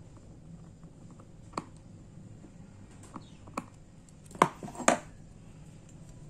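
Close handling sounds: a few small clicks, then two sharper knocks about half a second apart a little past halfway through.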